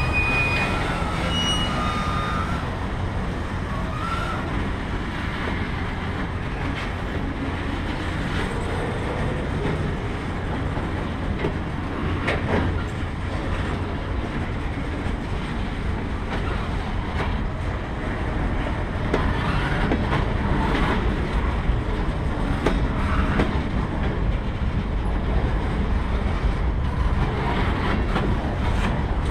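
Freight train's flatcars rolling past: a steady rumble of steel wheels on rail, with occasional clicks as the wheels cross rail joints, growing a little louder in the second half.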